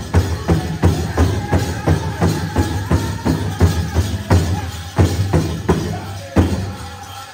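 Powwow big drum beaten in a steady pulse of about three strokes a second under the group's high singing, with the rattle of the dancers' leg bells. Near the end the beat breaks into a few single hard strikes and stops, closing the song.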